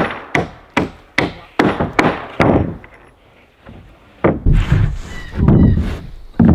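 Hammer driving nails into OSB subfloor sheathing on wooden floor joists: about seven sharp strikes, a little over two a second. A little past four seconds in come heavier, deeper wooden thuds as another OSB sheet is set down on the frame.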